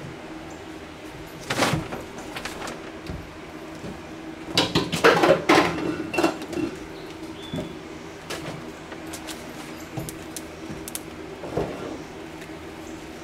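Scattered knocks and clicks of work and handling, with a busier clatter and rustle about five seconds in, over a steady low hum.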